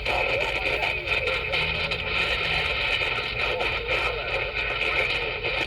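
CB radio speaker giving out a steady rush of static with a weak, garbled voice from a distant station half-buried in it, unreadable through the noise.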